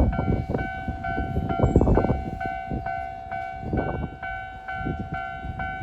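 Japanese level-crossing warning bell ringing in a steady, rapid ding-ding, about two and a half strokes a second, as a Hokuso 7500-series electric train passes over the crossing. The train's wheels thump and clatter over the rail joints and crossing under the bell.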